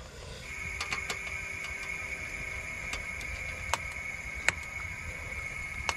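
Compressed air hissing into a pneumatic bellows (air bag) jack as it lifts the rear suspension hub to load the new coil spring: a steady hiss with a high whistle, with a few sharp clicks.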